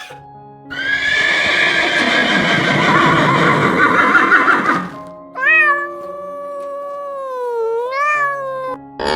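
A horse neighing, a loud, rough, wavering call lasting about four seconds, followed by a second, smoother drawn-out animal call that dips and rises in pitch, over soft background music.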